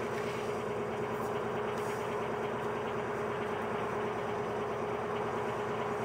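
Narrowboat engine running steadily at low revs, a constant hum with a steady tone.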